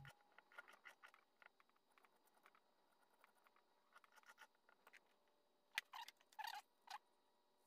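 Faint handling sounds of a pocketknife and a metal file: small light clicks and scratches, then four short scrapes close together about six seconds in.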